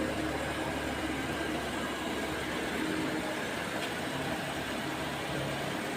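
Steady motor-vehicle noise with a low hum and no distinct events.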